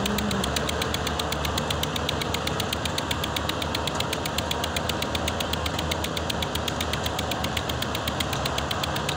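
Tractor's diesel engine running steadily with an even, rapid clatter.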